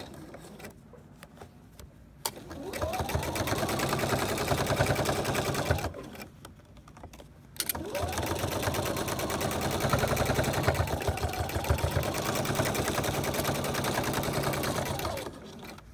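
Electric sewing machine stitching through fabric in spurts: the needle runs fast and even, the motor pitch rising as it speeds up and falling as it slows, and it stops twice for a second or two and briefly again near the end.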